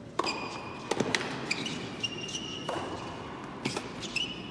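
Tennis ball being struck by rackets and bouncing on an indoor court during a point, a series of sharp knocks, with several high squeaks of players' shoes in between.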